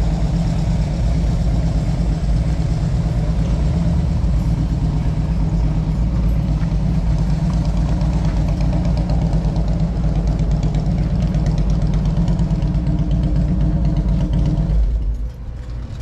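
American IronHorse V-twin motorcycle engine running steadily while riding. The sound drops sharply about fifteen seconds in.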